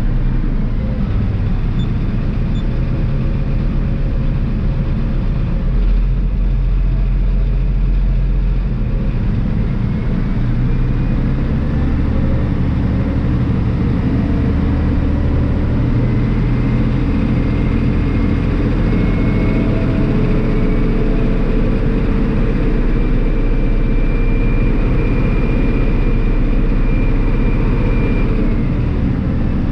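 Diesel engine of a 2003 New Holland TJ375 four-wheel-drive tractor idling steadily. It runs smoothly now that its starting trouble has been fixed with a new starter motor.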